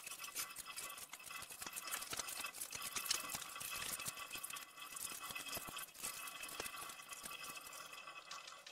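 Faint, irregular clicking, tapping and rustling of objects being handled and arranged inside a wire-mesh rabbit cage, with a faint steady high tone beneath.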